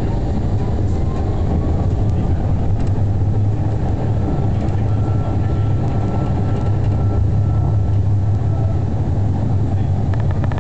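Tram running along the track, heard from inside the car: a steady low rumble of wheels on rails and running gear. A faint high whine holds for a few seconds midway.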